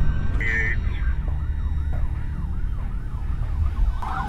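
Police siren on yelp, its pitch sweeping up and down about three times a second and growing louder near the end, over a steady low engine and road rumble. A short beep sounds about half a second in.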